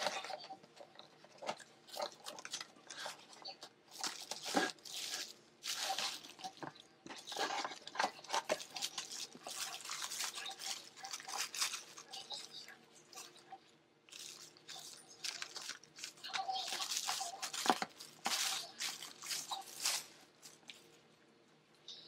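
Clear plastic packaging crinkling and rustling in irregular bursts as a boxed hair tool is unwrapped and handled.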